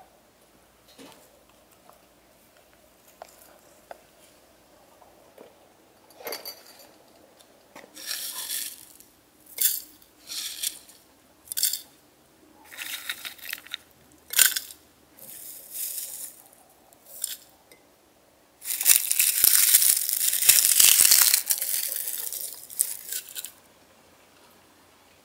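Dried tea herbs, flowers and leaves handled and dropped into a glass teapot: a run of short, dry crinkling rustles, then a longer, louder crackling rustle of about five seconds near the end.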